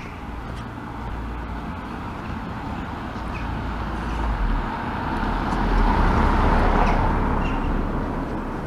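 A car driving along the street and passing close by, its engine and tyre noise building to loudest about six seconds in, then fading.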